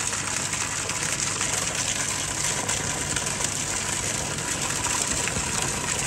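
Steady rush of water pumped through a homemade upflow pond filter, pouring out of the top and splashing down, with air bubbling up through the clear filter column.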